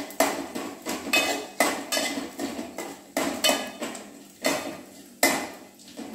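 A metal spoon scraping and clinking against an aluminium pan as fried Bombay duck pieces are stirred and scooped out of the oil, about two strokes a second, thinning out toward the end.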